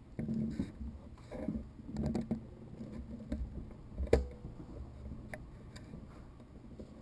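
Footsteps and handling noise from a handheld camera carried through the house: irregular soft thuds and shuffles, with one sharp knock about four seconds in.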